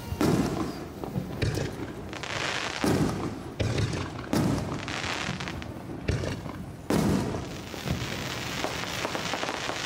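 Aerial fireworks bursting in quick succession: deep booms about once a second, some followed by a spreading crackle.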